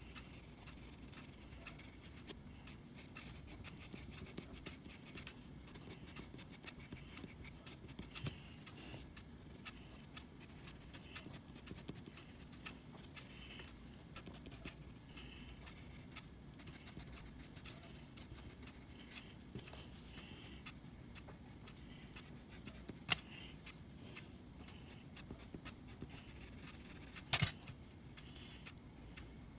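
Coloured pencil scratching across colouring-book paper in quick, light, continuous strokes, with two sharper clicks near the end.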